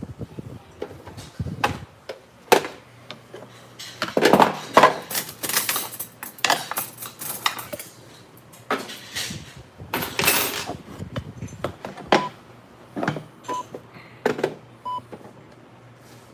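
Tableware clattering at a restaurant table: bowls, chopsticks and spoons knocking and scraping in irregular clusters. Three short high beeps sound near the end.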